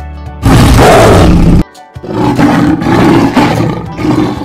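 Two loud, harsh wild-animal calls played as a sound effect over background music: a short one about half a second in, then a longer one after a brief gap.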